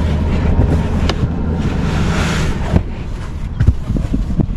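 A steady low hum with wind noise on the microphone. A sharp click about a second in, then several knocks in the second half, as a removable trunk floor panel in a car is handled.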